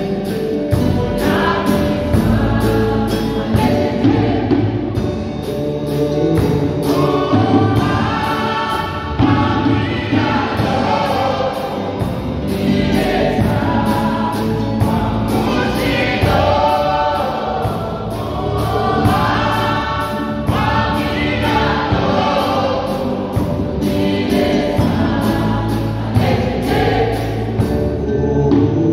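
Mixed choir of young voices singing a gospel praise song in harmony, over low accompaniment with a steady ticking beat.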